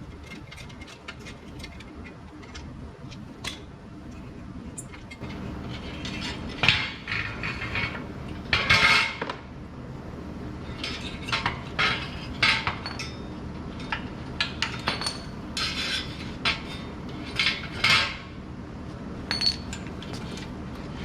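Metal clanking and clinking as a bent metal ATV bumper and its bolts are worked loose and pulled off. Sharp knocks come irregularly, loudest around the middle and near the end. A steady low hum runs underneath from about five seconds in.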